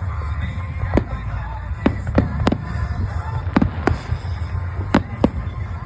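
Fireworks show: about eight sharp bangs of bursting shells, several in quick pairs, over a steady low rumble.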